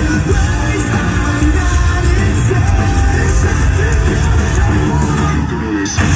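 Live rock band playing loud through a PA, heard from the audience: drums, distorted electric guitars and a singer's voice. Just before six seconds in the top end thins out for a moment, then the full band comes back in abruptly.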